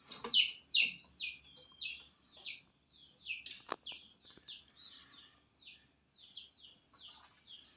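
Chicken chicks peeping rapidly, each peep falling in pitch, about two a second at first, then fainter and more broken up in the second half while the snake seizes a chick. One sharp click sounds midway.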